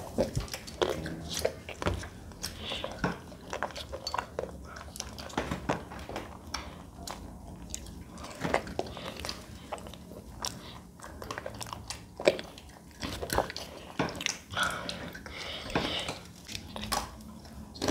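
Close-up mouth sounds of eating Magnum chocolate-coated ice cream bars: irregular bites, licking and chewing, with sharp clicks and crackles from the chocolate shell.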